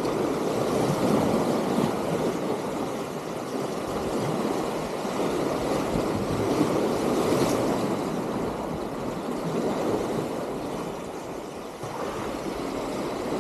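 Sea waves surging and washing over the concrete tetrapods of a breakwater, a steady rush of surf that swells and eases.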